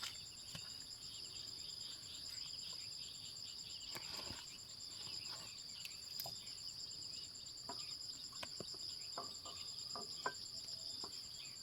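Insects chirping steadily in a high, continuous, pulsing trill, with a few faint scattered clicks and taps.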